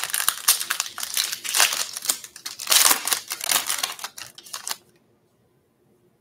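Foil wrapper of a Topps Pro Debut baseball card pack crinkling and tearing as it is ripped open by hand and the cards are drawn out. The loudest crackle comes near the three-second mark, and the sound stops at about five seconds.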